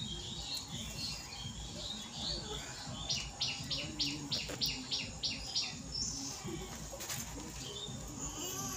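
Birds chirping, with a run of quick, evenly spaced high chirps at about three to four a second for a few seconds midway.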